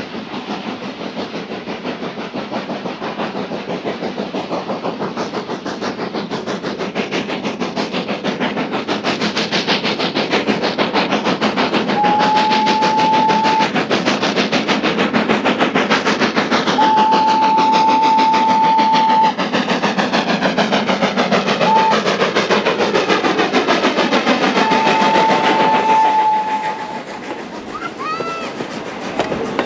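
Steam locomotive built as Thomas the Tank Engine running past with a fast, steady beat that grows louder as it approaches. Its whistle sounds four times on one steady tone, long, long, short, long: the grade-crossing signal. The train sound drops away near the end.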